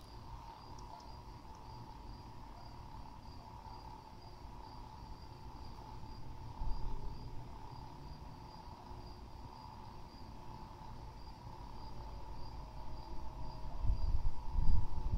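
Night insects, crickets, chirping steadily in a regular pulsing rhythm. Low rumbling on the microphone swells near the end.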